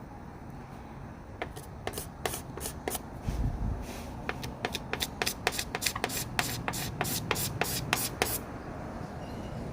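Quick, short scraping strokes on a painted surface, about four a second, as a dust nib in the finish is worked flat by hand. A low bump about three seconds in.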